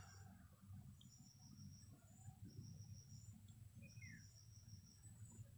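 Near silence with faint insects chirping in short high trills that repeat about every second, over a low rumble.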